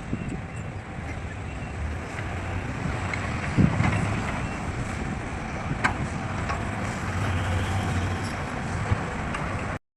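Heavy diesel earthmoving machinery, an excavator or dump truck, running steadily with a low engine hum, occasional sharp knocks and wind on the microphone. The sound cuts out for a moment near the end.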